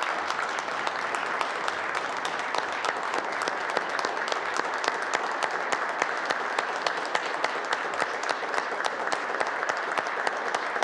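Applause from a chamber full of legislators: many people clapping steadily at an even level.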